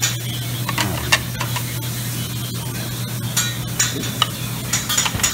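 Busy buffet restaurant noise: a steady low hum and hiss, with scattered sharp clinks of plates and serving utensils.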